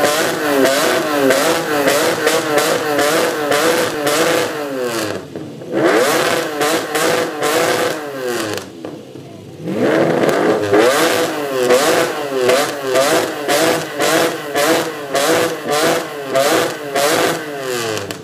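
Three Lamborghini Countach V12 engines revved together in repeated short throttle blips, their pitch rising and falling about once a second, with brief lulls around five and nine seconds in.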